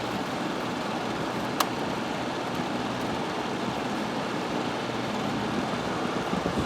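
Vintage 6,000 BTU Gibson Air Sweep window air conditioner running on fan only, a steady loud rush of air from its blower; the compressor has not kicked on because the room is too cold for the thermostat to call for cooling. A single sharp click comes about one and a half seconds in.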